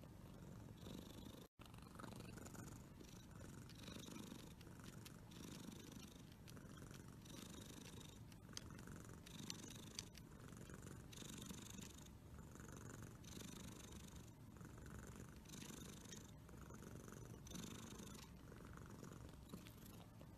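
Domestic tabby cat purring faintly, swelling and easing in a steady cycle about every second or so, with a brief break about a second and a half in.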